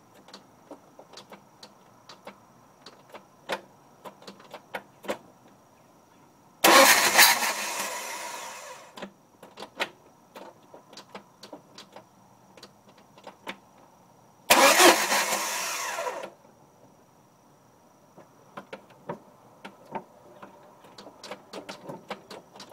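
Jeep Cherokee XJ 2.5 L four-cylinder being turned over by the starter twice, each attempt about two seconds long and cut off abruptly, with scattered sharp clicks before, between and after. The Jeep has a manual gearbox and will start only in first gear, not in neutral; the owner suspects the starter or the neutral safety relay.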